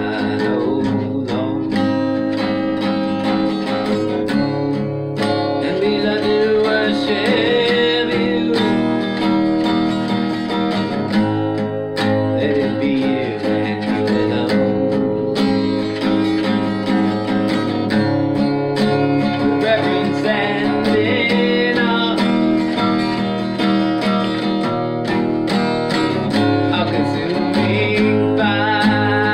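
A man sings a worship song while strumming an acoustic guitar in a steady rhythm.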